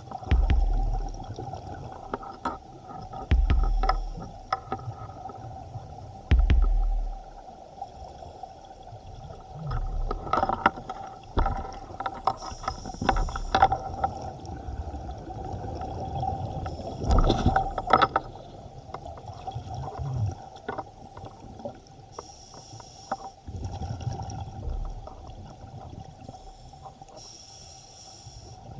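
Scuba divers' exhaled bubbles rumbling and gurgling underwater in bursts every few seconds, recorded underwater, with clicks and a steady faint tone underneath.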